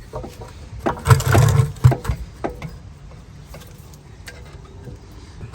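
Metal clicks and knocks of a rear brake caliper being wiggled off the brake pads and rotor, with a brief low rumble about a second in.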